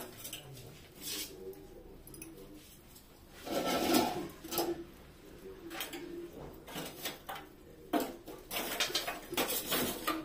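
Kitchen pots, bowls and utensils being handled, knocking and scraping against each other and the table, with a louder clatter about four seconds in and a quick run of clicks and knocks near the end.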